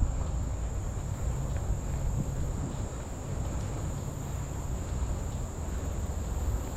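Insects trilling steadily on one constant high note, over a low rumble.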